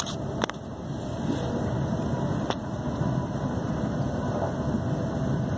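Interior running noise of a Class 350 electric multiple unit at speed: a steady low rumble of wheels on the rails, growing a little louder in the first second or so, with a couple of sharp clicks in the first few seconds.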